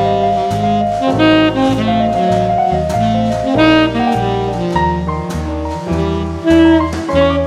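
Background jazz music: a saxophone-led tune over a bass line stepping note by note and light drums with cymbal ticks.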